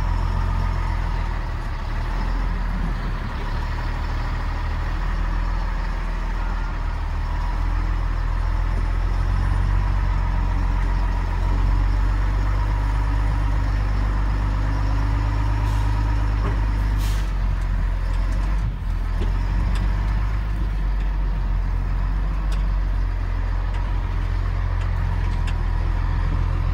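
Engine of a TGB 30 off-road military truck running as it crawls over rough forest ground, heard from inside the cab: a steady low drone, with a brief dip about two-thirds of the way through.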